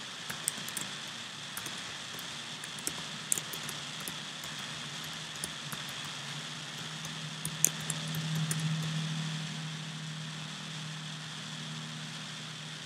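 Scattered, irregular clicks of a computer keyboard and mouse over a steady hiss of machine and room noise. A low hum swells in the middle and fades away.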